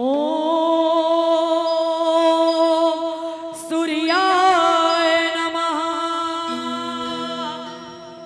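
A woman singing the opening of a Chhath devotional song into a microphone: she slides up into one long held note, takes a breath about three and a half seconds in, then sings a wavering, ornamented phrase. Lower steady accompaniment tones come in near the end.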